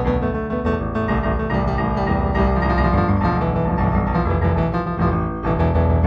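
Improvised solo piano music with sustained, ringing chords. A new chord with a strong bass is struck about five and a half seconds in.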